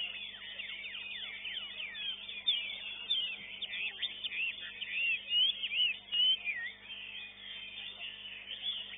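Caged songbirds singing at a bird-song contest: a dense, continuous run of quick high chirps and whistled notes, loudest around five to six and a half seconds in, over a faint steady hum.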